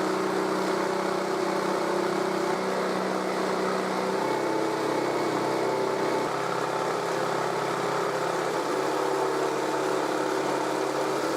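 Jigsaw mounted under a homemade plywood jigsaw table, running steadily while cutting a wooden block to width. Its motor hum changes pitch about four seconds in, as the load on the blade changes.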